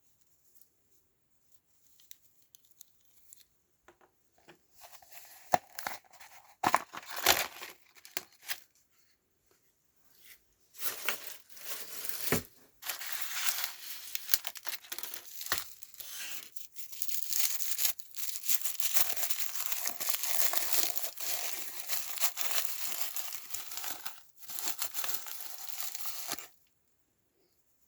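Plastic packaging of an L.O.L. Surprise! toy being torn open and crinkled by hand. After a few quiet seconds come scattered crinkles, then a long stretch of continuous tearing and rustling with a couple of short breaks, which stops shortly before the end.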